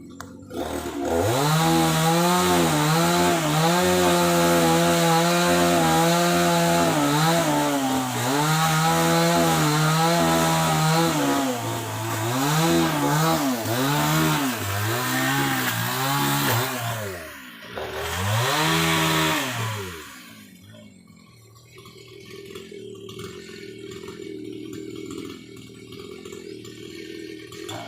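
Chainsaw running at high revs, its pitch repeatedly sagging and recovering as the chain bites into wood. It falls away about 20 seconds in, leaving a quieter low hum.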